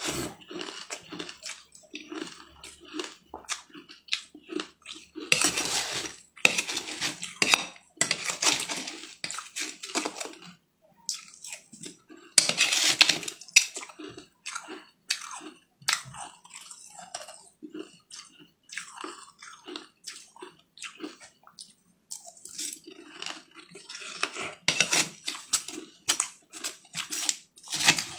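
Close-miked crunchy chewing of mouthfuls of a green icy food, with a metal spoon clinking and scraping in a metal bowl between bites. Several louder bursts of crunching stand out among the smaller clicks.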